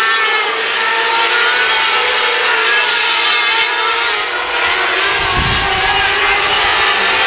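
A pack of winged sprint cars racing on a dirt oval at speed. Several engine notes overlap, rising and falling as the cars go through the turns, and a low rumble joins about five seconds in.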